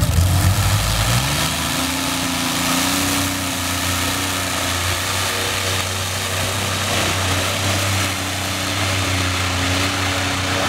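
A pulling tractor's engine revs up over the first second or so, then runs hard at steady high revs with small dips, hauling a weight sled loaded to about 20 tonnes.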